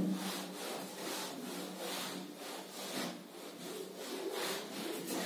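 Whiteboard duster rubbed across a whiteboard in quick repeated back-and-forth strokes, erasing the writing.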